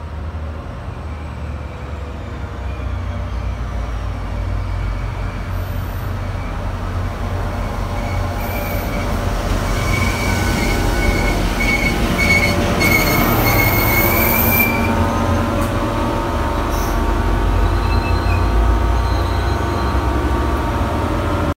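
NJ Transit EMD F40PH-2CAT diesel locomotive approaching and passing close by, its 16-cylinder EMD 645 prime mover running with a deep rumble and steady engine tones, growing louder until the locomotive draws level. A high thin squeal from the train's running gear comes and goes, loudest as the locomotive passes, followed by the passenger coaches rolling by.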